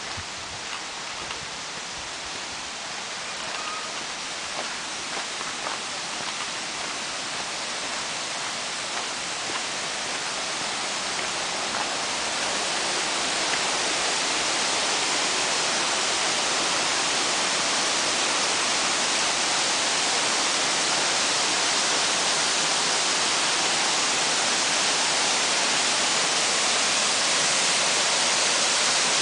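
Rushing water of a waterfall and its stream: a steady hiss that grows louder over the first dozen seconds and then holds. Faint footsteps on the path can be heard in the first ten seconds or so.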